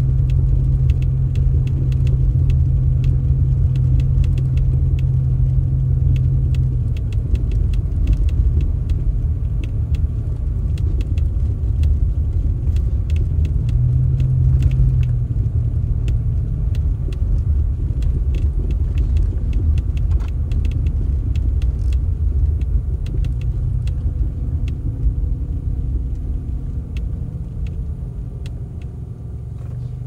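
Motor vehicle running: a steady low rumble with a drone that drops out and comes back, and scattered light clicks and rattles.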